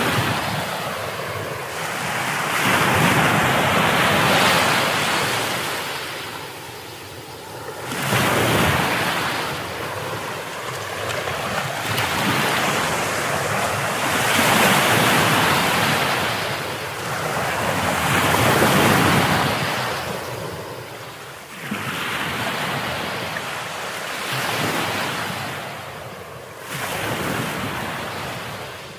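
Ocean surf: waves washing in and drawing back, swelling and fading every three to four seconds.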